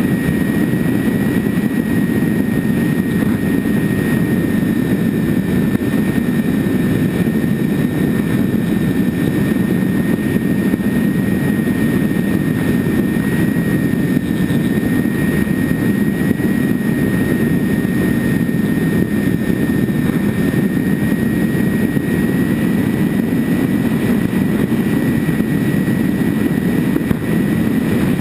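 Twin electric motors and propellers of a ParkZone Grand Cruiser RC model plane running steadily at cruise power, heard as a thin constant whine. It is under a loud, even rush of wind over the onboard camera.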